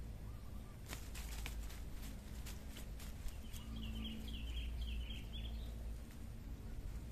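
A quick series of light clicks, then a bird chirping rapidly for about two seconds, over a low steady rumble.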